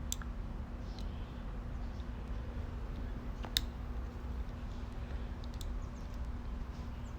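Faint handling of small parts with a few light clicks, the sharpest about three and a half seconds in, over a steady low hum.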